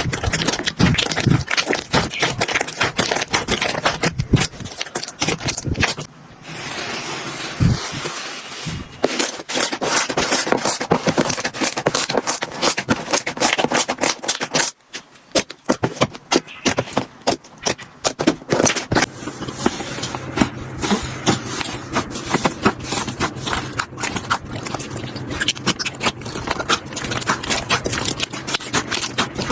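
Slime being squished and poked by hand: dense crackling and popping clicks from air pockets in the slime. The texture of the crackle changes every few seconds, about four times.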